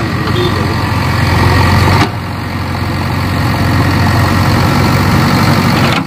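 JCB backhoe loader's diesel engine running steadily as the machine pushes itself out of mud with its buckets. About two seconds in the sound breaks off sharply and carries on slightly quieter.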